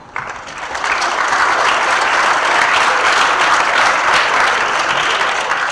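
Audience of schoolchildren applauding, starting suddenly and building within the first second, then easing off near the end.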